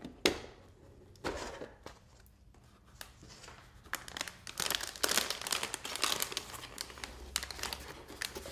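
Plastic motherboard packaging crinkling and crackling as hands lift it off and out of the box. There is a sharp click just after the start, a short quieter spell, then dense crinkling through the second half.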